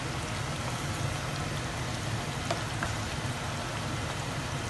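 Fumbwa, a thick leafy stew in palm oil, simmering in a pan with a steady sizzling, bubbling crackle. A wooden spatula stirring it adds a few faint clicks, over a low steady hum.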